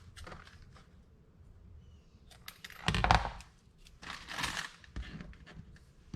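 Things being handled on a workbench: light clicks and crinkling, with a louder knock and rustle about three seconds in and another rustle about a second later.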